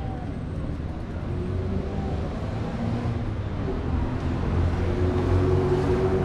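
A motor vehicle running in the street, its engine rumble growing louder over the last couple of seconds as it comes closer.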